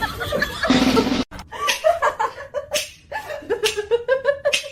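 A person laughing in short repeated bursts.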